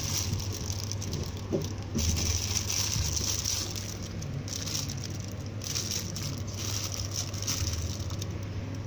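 Clear plastic wrapping around squishy foam toys crinkling and crackling as hands grip and turn them, in three or four bursts of a few seconds each.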